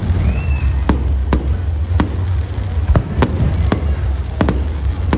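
Aerial fireworks bursting in a steady string of sharp bangs, roughly one to two a second, over a continuous low rumble.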